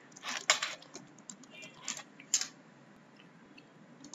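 Computer keyboard being typed on: several separate keystrokes scattered over the first two and a half seconds.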